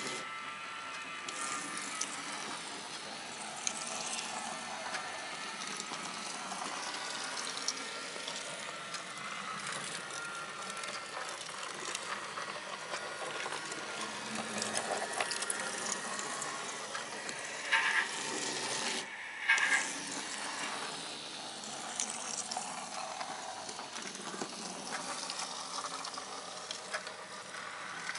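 Model layout machinery running: small electric motors of the model vehicles and trains whirring, with constant light clicking of gears and wheels. Two brief, louder sounds come about two-thirds of the way through.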